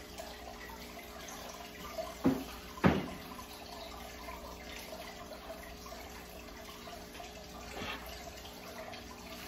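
Two sharp knocks about half a second apart as a ceramic coffee mug and other breakfast things are set down on a hard dining tabletop, with a fainter knock near the end, over a steady low hum and hiss.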